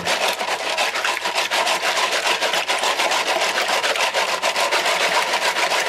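A handful of steel fishing hooks shaken hard in a plastic milk-bottle container with a little water, rattling in a fast, even rhythm. The shaking knocks loose rust off the hooks after a soak in malt vinegar.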